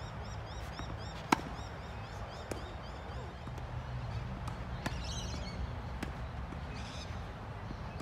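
Tennis ball being struck and bouncing: a few sharp, separate knocks, one much louder and closer about a second in, the rest fainter and farther off.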